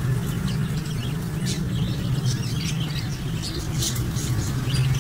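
Many caged budgerigars chattering, with quick overlapping high chirps, over a steady low hum.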